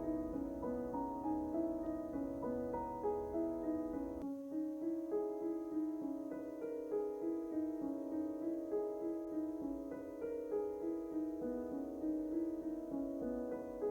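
Gentle piano music, a melody of stepping notes over held chords; the low bass drops out about four seconds in.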